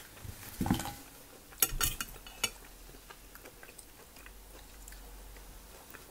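A metal fork clinks and scrapes in a ceramic bowl of cooked mussels, a cluster of sharp clicks in the first couple of seconds. Then comes faint chewing and small ticks as bread is bitten and eaten.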